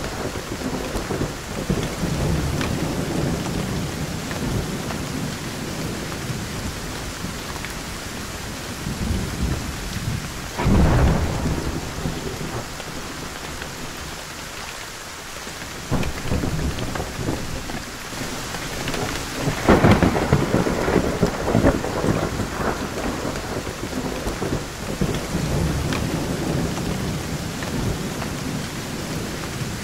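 Thunderstorm: steady hard rain with rolling thunder. A thunderclap breaks about ten seconds in and a louder one about twenty seconds in, each rumbling on for several seconds.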